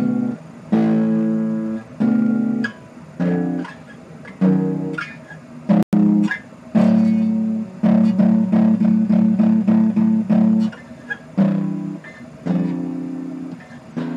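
A Harley Benton HBD-120CE steel-string acoustic-electric guitar on corroded strings, picked note by note and chord by chord with short pauses, and a run of quickly repeated notes, about four a second, near the middle.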